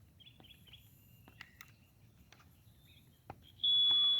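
Faint bird chirps, then a click and, near the end, one steady high-pitched beep from the Mighty Mule 371 gate opener as it is signalled to open the gate.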